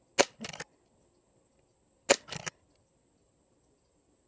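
Two shots from a Brocock Sniper XR Sahara PCP air rifle, about two seconds apart. Each is a sharp crack followed a split second later by a short patter of fainter clicks.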